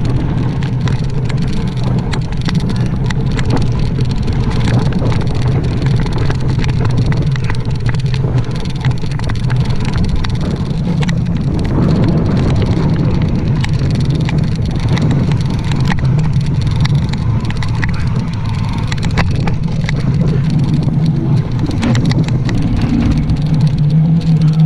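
Wind buffeting a camera microphone on a mountain bike riding fast, a steady loud rumble, with frequent clicks and rattles from the bike and tyres running over a dirt trail.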